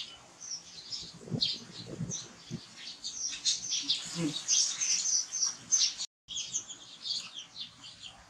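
Small birds chirping busily, many short high-pitched chirps overlapping, with a few soft low knocks in the first half.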